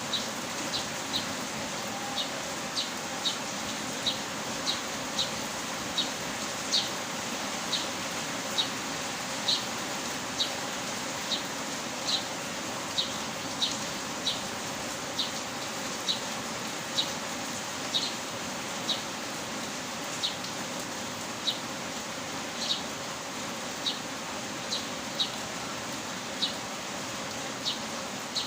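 Steady rain hiss, with a short high tick repeating at uneven intervals about once a second.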